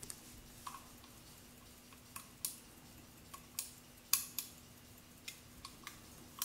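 Antique pocket chronograph being handled: about a dozen short, sharp metallic clicks at irregular intervals, several in pairs a quarter second apart, the loudest a little past four seconds in.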